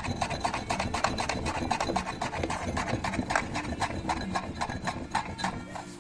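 Gritty scraping and rubbing of sand and dirt packed inside a quad's rear drum brake, in quick irregular strokes, a few a second.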